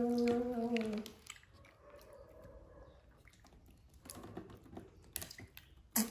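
A person humming a steady 'mmm' for about the first second, the pitch dropping as it ends. After that come soft clicks and small taps of a spoon and cup as a baby monkey is spoon-fed, with one sharp click near the end.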